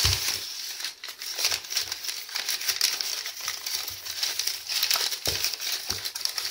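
Crumpled newspaper packing rustling and crinkling continuously as a hand rummages through it in a cardboard box, with a few dull bumps near the start and about five seconds in.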